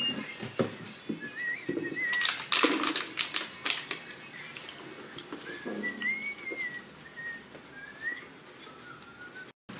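A thin wavering whistle gliding slowly up and down in pitch, in short phrases, mixed with many sharp clicks and clinks that are thickest a couple of seconds in.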